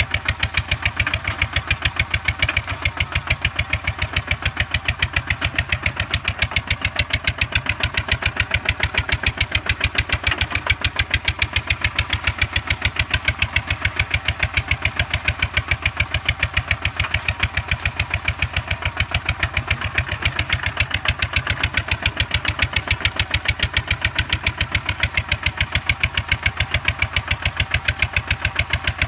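A two-wheel walking tractor's single-cylinder engine running steadily under load as it pulls a plow through a muddy rice field, with an even, rapid exhaust beat.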